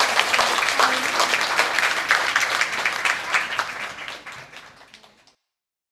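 A small audience clapping, a dense patter of hand claps that fades away and stops about five seconds in.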